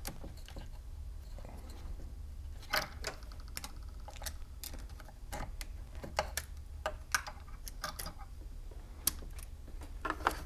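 Irregular light clicks and taps of small plastic and metal parts as hands fit the throttle cable onto the carburetor linkage of a Husqvarna 550 XP chainsaw and work a small screwdriver in the rear handle housing.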